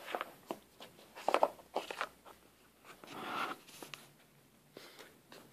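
A small cardboard product box being handled and opened: scattered light clicks and taps, with a short rustling scrape about three seconds in.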